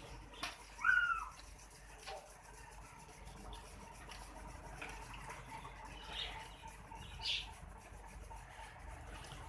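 Quiet farmyard ambience with a few short bird chirps, the loudest a brief rising-and-falling call about a second in and two fainter ones near the end.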